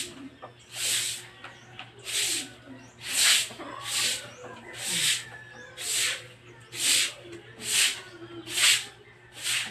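A stiff broom scrubbing a wet concrete floor in regular swishing strokes, about one a second.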